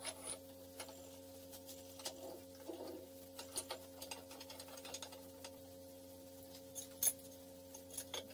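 Scattered light metal clicks and taps as a milling cutter in its holder is pushed up into the spindle of an Archdale vertical milling machine and worked by hand, with a sharper click about seven seconds in and a few more near the end. A faint steady hum runs underneath.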